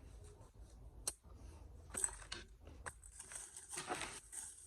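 Faint crinkling and rustling of food packaging being handled, with a few light clicks, the rustling growing steadier near the end.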